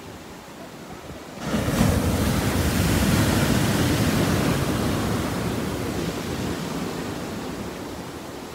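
Ocean surf: a wave breaks with a sudden loud rushing wash about one and a half seconds in, then slowly fades as the foam runs out.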